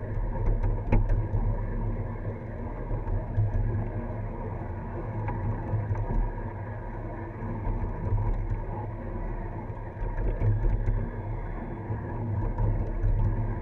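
Ride-on live-steam scale train rolling along its track, a steady low rumble that swells and eases unevenly, with a few faint clicks.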